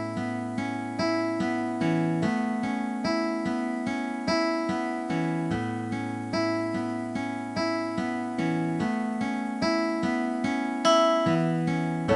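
Background music: gentle plucked or keyboard notes at an even pace, about two notes a second over held chords.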